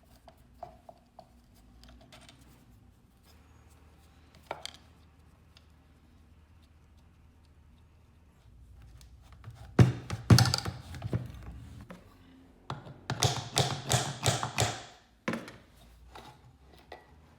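Knocking and rattling as the motor housing of a Rockwell Porta Band 725 portable bandsaw is worked apart to reach the armature. A few light clicks come first, then two bursts of rapid knocks, about ten and thirteen seconds in.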